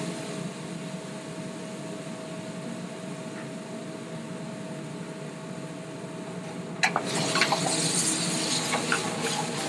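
Brandy and red wine pan sauce with mushrooms sizzling in a steel skillet on a gas range, over a steady hum. About seven seconds in there is a sharp clink as the pan is tilted and the brandy catches fire, and the sizzle turns louder and crackly as the flambé flares.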